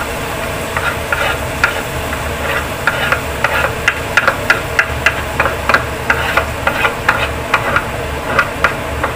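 A metal spoon scraping and tapping chopped tomatoes off a wooden cutting board into a stainless steel pot, in quick irregular scrapes and knocks several a second. A steady low hum runs underneath.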